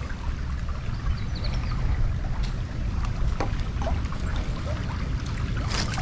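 Shallow creek water trickling over a pebble bed, under a steady low rumble of wind on the microphone. Right at the end, a crunch of footsteps on loose creek pebbles begins.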